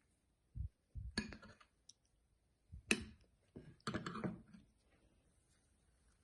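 A few faint, sharp clicks and soft knocks, with short scraping sounds, from handling a bowl of slime and a bottle of colouring while mixing it in.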